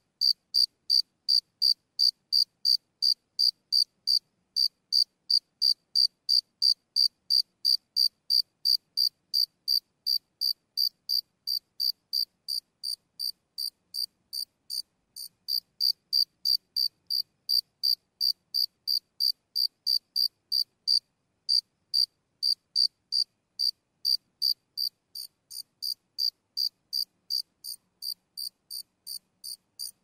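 A single cricket chirping close by: a steady run of short, high chirps, about two and a half a second, broken by a few brief pauses.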